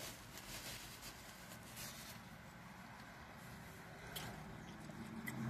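Faint eating noises: soft, scattered mouth and wrapper-like rustles from someone chewing food. A low steady hum comes in near the end.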